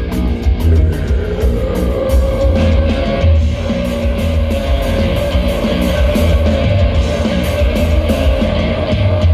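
Metal band playing live, loud: distorted electric guitars and a pounding drum kit, with the vocalist holding one long scream from about a second and a half in to near the end.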